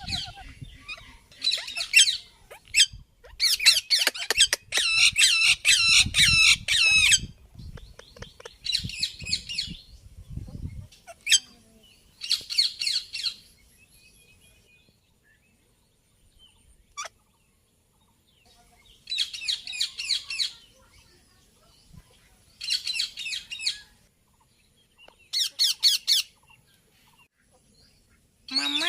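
Indian ringneck parakeet squawking in repeated bouts of harsh, shrill calls, with a quiet stretch of several seconds about halfway through.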